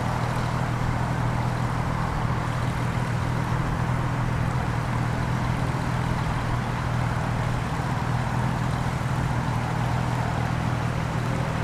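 Steady low mechanical hum with several constant tones, unchanged throughout.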